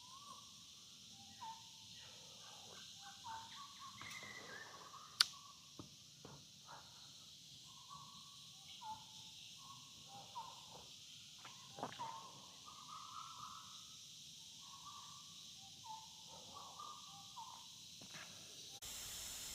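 Forest ambience: a steady high chirring of insects, with an animal's short rising calls repeating about once a second and a few sharp clicks. Near the end it cuts to a steady hiss.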